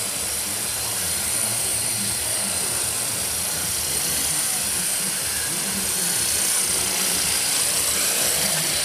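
Esky Honey Bee CP2 electric RC helicopter hovering: its motor and gears whine steadily at a high pitch over the rush of the spinning rotor blades.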